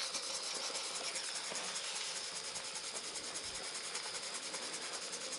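Muncaster model table steam engine running on steam from a small gas-fired boiler: a steady, fast, even chuffing with a hiss. It is running slower than usual because boiler pressure has fallen to about 30 psi after a top-up of cold water.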